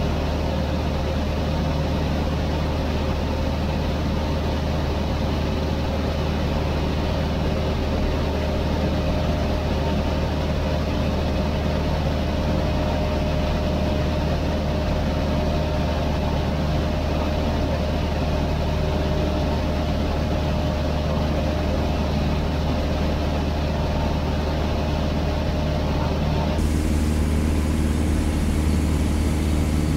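Cessna 152's four-cylinder Lycoming engine and propeller running steadily at cruise, heard from inside the cabin as a constant drone. The tone shifts slightly near the end.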